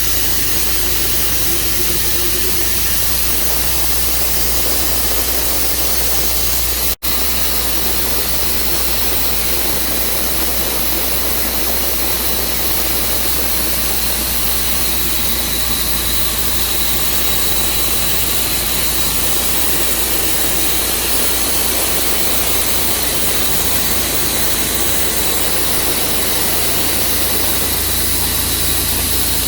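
A gas-engine-driven saw running steadily, a constant hiss over a low hum. It cuts out for an instant about seven seconds in.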